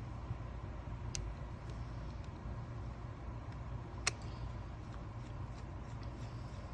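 Small metal clicks from a screwdriver working the screws out of a Tillotson carburetor's fuel pump cover, two sharp ones about a second in and about four seconds in, over a steady low hum.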